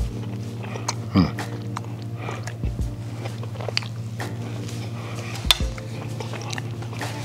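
Metal fork clicking and scraping against a plate while someone chews a mouthful of pasta. There are a few sharp clinks, the loudest about five and a half seconds in.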